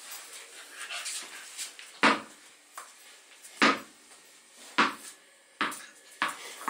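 A black puppy barking five times in short, sharp yaps, the first about two seconds in and the later ones coming closer together, with softer whimpering sounds before them.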